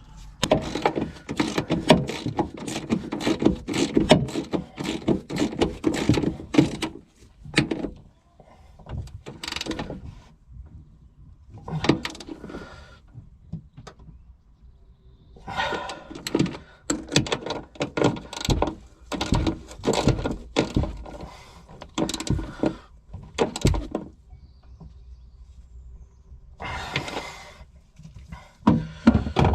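Hand tools working on the upper mounting nuts of a rear shock absorber: runs of rapid clicking and knocks in several bursts, the longest in the first seven seconds.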